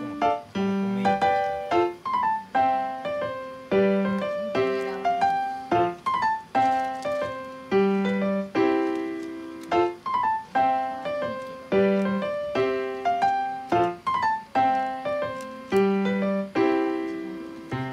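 Background piano music: a light melody of struck notes over a chord pattern that repeats about every four seconds.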